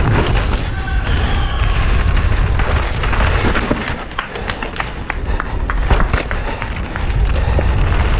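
Mountain bike descending rough ground at speed: wind buffeting the camera microphone in a steady low rumble, with the bike clattering in many sharp clicks and knocks over rocks and gravel, thickest from about three seconds in.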